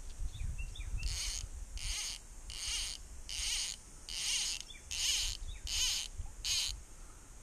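An insect calling in a series of about eight evenly spaced, high-pitched buzzing pulses, with a low rumble of wind or handling noise underneath.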